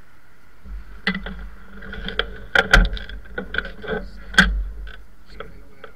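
Handling noise: leather gloves being pulled on and hands gripping a motorcycle's handlebars, heard as a run of irregular clicks, knocks and rustles over a steady background hum. The loudest knocks come about two and a half and four and a half seconds in.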